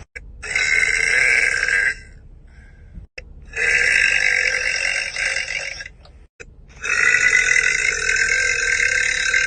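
A woman burping loudly three times, long drawn-out burps, each longer than the one before.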